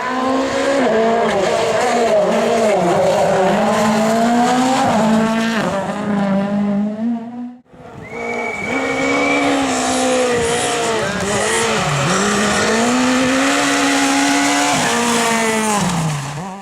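Turbocharged World Rally Car engines at full effort on a rally stage, the engine note rising and falling sharply with throttle and gear changes. The sound cuts off abruptly about halfway through and a second car picks up, running hard, then dropping away near the end.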